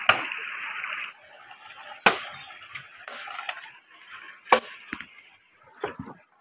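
Dry bamboo poles being pulled down and handled: several sharp knocks and cracks, with about a second of rustling at the start.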